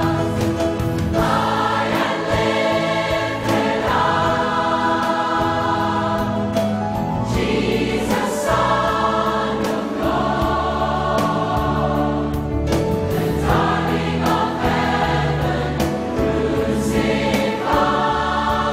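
Large mixed choir of men and women singing a hymn together in full voice, holding long chords.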